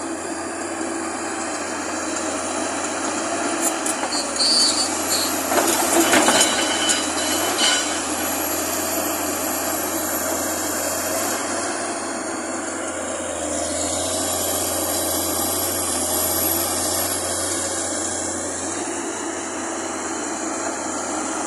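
Tracked excavator's diesel engine running steadily while it digs, with stones clattering and the bucket scraping through rocky soil for a few seconds near the middle.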